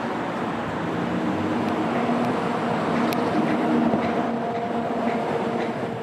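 A train passing: a steady rumble with several held low tones that swells in the middle, and one sharp click about three seconds in.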